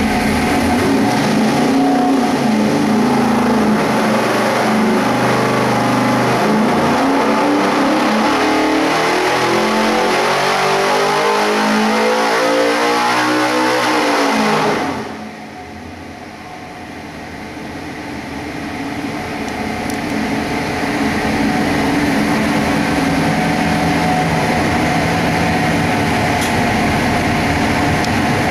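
598-cubic-inch big-block Ford drag-race engine with a solid roller camshaft and 14.5:1 compression, making a full-throttle pull on an engine dyno. It holds a steady speed at first, then its note climbs steadily to about 7,300 rpm and cuts off suddenly about halfway through, after which it settles to a lower, quieter running.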